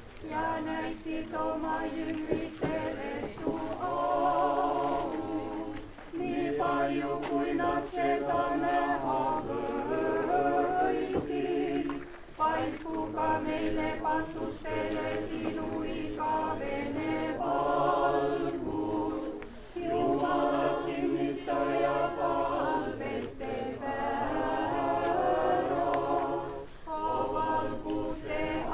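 A cappella group of voices singing Orthodox church chant, in phrases of about six seconds with short pauses between.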